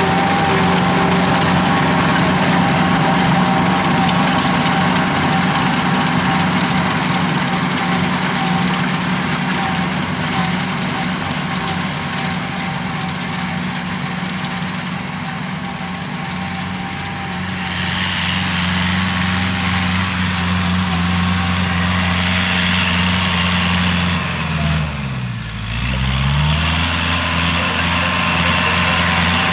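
Kubota tractor's diesel engine running steadily under load as it drives a rotary tiller through the soil. Near the end the engine pitch dips briefly and comes back up.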